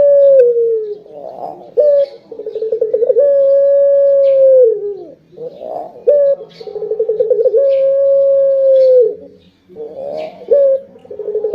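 Puter dove (domestic collared dove) cooing. Each coo opens with a quick stuttering run of notes and leads into a long, steady note that falls away at the end, repeated about every four seconds, with a breathy sound between phrases.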